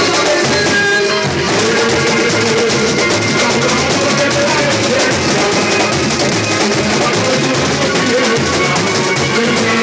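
Samba school bateria playing a samba beat: surdo bass drums, snare drums and other percussion in a dense, steady rhythm, with the samba song's melody carried over the top.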